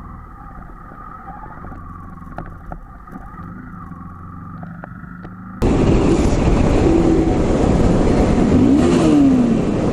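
Motorcycle engine noise while riding: a muffled, steady hum, then after about five and a half seconds a sudden jump to loud wind rush and engine sound, with a brief falling engine note near the end.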